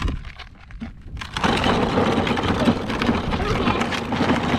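Toy truck's plastic wheels rolling by themselves over a gravelly, rocky trail: a dense, steady crackle and rattle of grit and stones that starts about a second and a half in.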